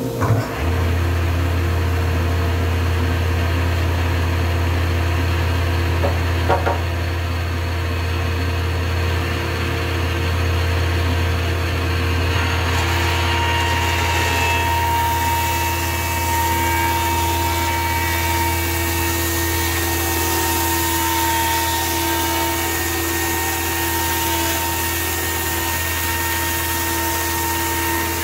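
A Grizzly G0891 15-inch helical-cutterhead planer is switched on with a click and runs with a steady hum. About twelve seconds in, a hissier cutting noise joins as a board feeds through the cutterhead.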